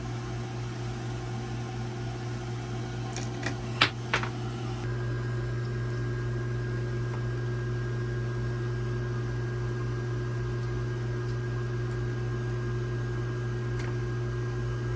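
Steady machine hum, like a fan or air-conditioning unit running, with three sharp clicks about three to four seconds in. About five seconds in, a faint high whine joins and the hum gets a little louder.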